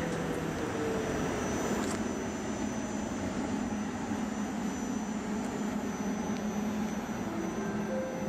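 Pesa-built electric locomotive standing at the platform, its cooling fans and blowers running with a steady rushing hum.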